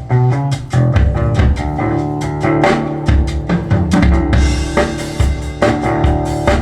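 Band music with a drum kit playing a steady beat over bass and guitar, played through Bowers & Wilkins 803 D4 loudspeakers driven by a Marantz MODEL 10 amplifier. A cymbal wash comes in a little past the middle.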